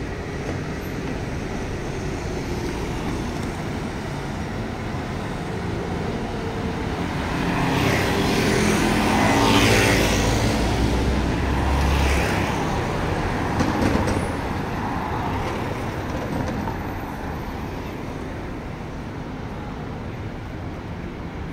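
City street traffic running steadily, with one motor vehicle passing close: it grows louder from about seven seconds in, peaks around ten seconds with a low engine rumble, and fades by about fourteen seconds.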